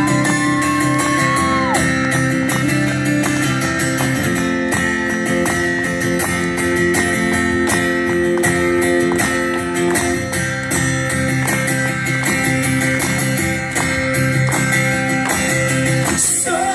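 Live band playing an instrumental passage of a rock song, led by strummed guitar chords over a steady beat, with no singing.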